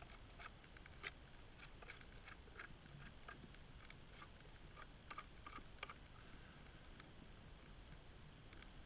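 Faint, irregular crackling of a small wood campfire: scattered sharp pops and ticks, a few a second.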